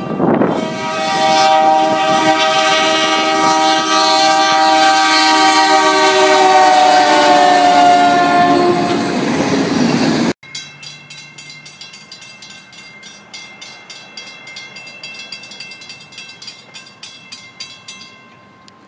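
A CSX freight train's lead locomotive, an SD70MAC, sounds its multi-note air horn in one long blast, the chord sagging slightly in pitch toward the end as it passes. After an abrupt cut about ten seconds in, railroad grade-crossing bells ring rapidly and the freight cars' wheels click over the rails. The bells stop shortly before the end.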